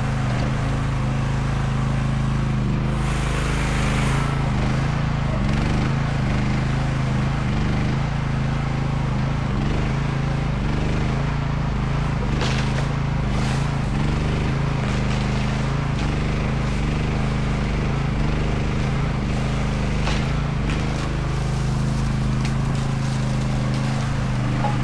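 Chinese mini excavator's engine running steadily while it pulls out a tree, with a few short knocks and scrapes over the top about three seconds in, midway and near twenty seconds.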